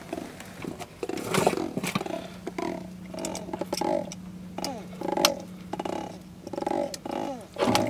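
Landed albino catfish croaking in a string of short grunts about every half second while pliers work a hook out of its mouth, with sharp clicks and knocks throughout. A steady low hum sets in about two seconds in.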